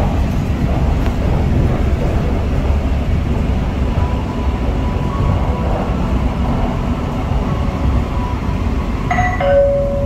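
MRT train running on an elevated line, heard from inside the car: a steady low rumble and running noise throughout. Near the end a short electronic chime sounds from the train's public address, the signal that an onboard announcement is coming.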